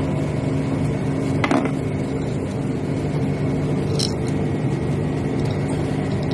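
Steady drone of running machinery in a ship's engine room, with a couple of short metallic clicks from tools or parts about a second and a half in and again about four seconds in.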